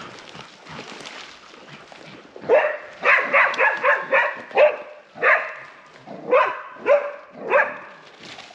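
Tracking dog barking in quick runs of several loud barks, starting about two seconds in.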